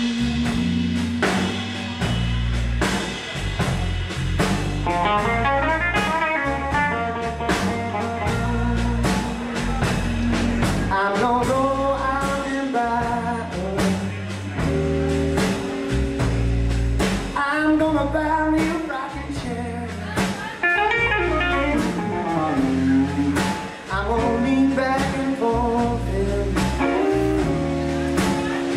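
Live blues band: electric guitar played over a steady drum-kit beat, with a male voice singing.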